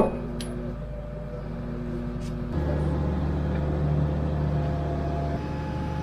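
Tracked hydraulic excavator's diesel engine running steadily. About two and a half seconds in, its note changes and gets louder as it takes up load, lifting and carrying the rusted dozer blade push arm.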